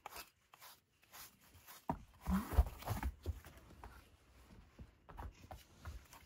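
Soft thumps and rustling close to the microphone, bunched about two seconds in, then faint scattered clicks.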